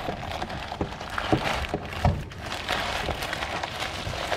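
Thin plastic protective wrap rustling and crinkling as it is handled and pulled off a device, with a few soft knocks along the way.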